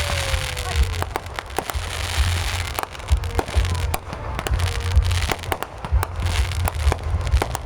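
Fireworks display: aerial shells going off in a rapid string of bangs and crackles over a deep rumble.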